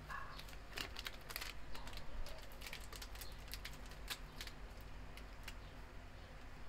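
A plastic Milo sachet crinkling and crackling in the hands as it is torn open and tipped over a bowl. The crackles come as quick, irregular clicks, thickest between about one and five and a half seconds in.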